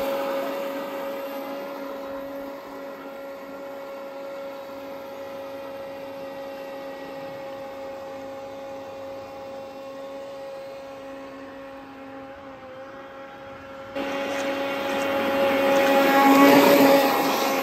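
Traxxas Blast RC boat's electric motor running at a steady high-pitched whine as the boat skims across the water. It fades as the boat runs off, then turns suddenly louder about fourteen seconds in as the boat passes close.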